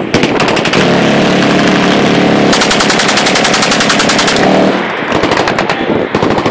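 Sustained fully automatic machine-gun fire: rapid bursts run almost without a break, and the shots come fastest and most evenly in the middle.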